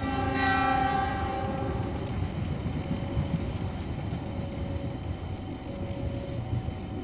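Train horn sounding one blast of about two seconds, a chord of several pitched notes, then fading to a low rumble of rail traffic.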